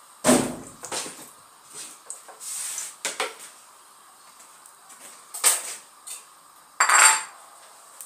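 Kitchen dishes and utensils clattering as they are handled: about five separate clinks and knocks, the loudest right at the start and another near the end.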